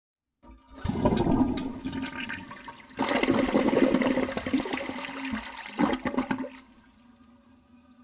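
Toilet flushing, recorded very close: a rush of water starts about a second in, a second louder surge follows about three seconds in, and it dies down to a faint trickle near the end.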